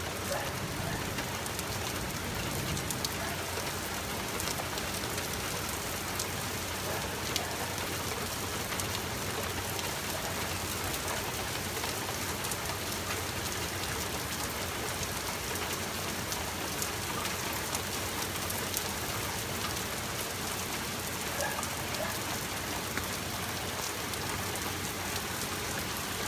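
Steady rain falling during a thunderstorm, an even hiss with scattered sharper drop ticks; no thunderclap stands out.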